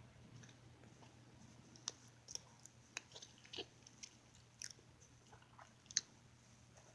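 Faint, close chewing and biting of a sandwich: soft moist clicks and crackles from the mouth, the loudest near the end. A steady low hum runs underneath.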